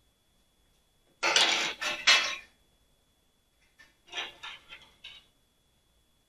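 Metal bonsai tools and wire clinking and rattling as they are handled on the work table: a loud bout of clatter lasting about a second, starting just over a second in, then a softer bout about four seconds in.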